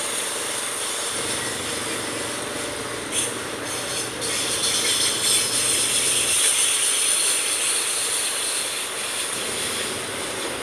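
Loaded freight-train covered hopper cars rolling past, a steady rumbling rattle of wheels and couplings with a thin high wheel squeal over it. A couple of sharp clanks come about three and four seconds in.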